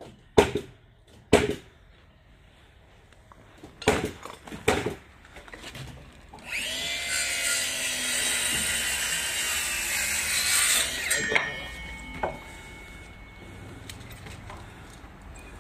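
Four sharp shots of a pneumatic nail gun driving nails into timber joists. A power tool's motor then whines steadily for about four and a half seconds, followed by a few lighter knocks.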